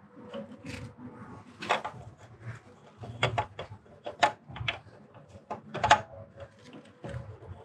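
Irregular clicks and knocks of metal parts and hand tools as a valvetronic servomotor is fitted into a BMW N55 engine's cylinder head.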